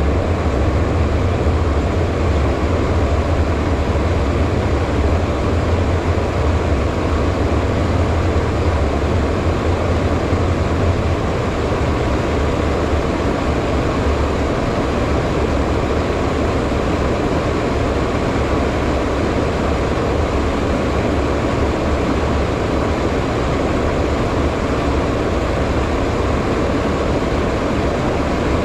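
Steady cabin noise inside a HondaJet's cockpit in flight: rushing airflow over the airframe with the hum of its two turbofan engines, over a deep rumble that eases slightly about a third of the way in.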